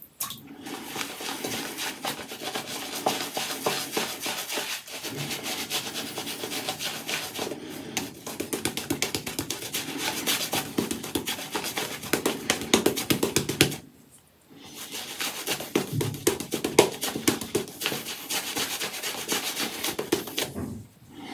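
Apshave Cashmere shaving brush scrubbing shaving-soap lather over wet stubble, a fast run of rubbing strokes as the lather is built on the face. It stops for about a second two-thirds of the way through, then starts again.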